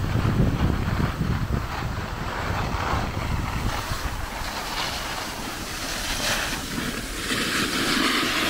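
Wind buffeting a handheld camera's microphone while skiing, together with the hiss of skis sliding over packed snow. The low rumble is strongest in the first half, and the snow hiss swells near the end.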